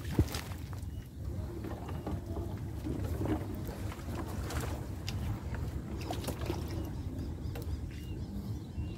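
Small wooden boat gliding slowly through reeds: stems brushing and scraping along the hull over a low rumble of water and wind, with one sharp knock about a quarter of a second in.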